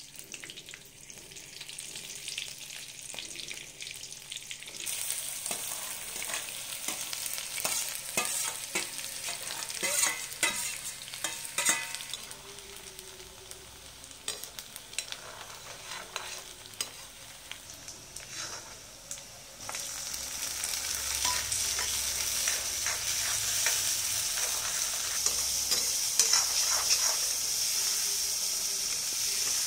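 Chopped onion and green chillies sizzling in hot oil in a steel kadai, with a steel ladle scraping and clicking against the pan as it is stirred. The sizzle picks up about five seconds in, and about two-thirds of the way through it turns louder and steadier as more vegetables go into the pan.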